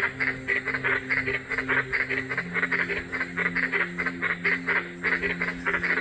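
Giant green tree frogs (white-lipped tree frogs) calling: loud croaking made of short, rapid calls, about four a second.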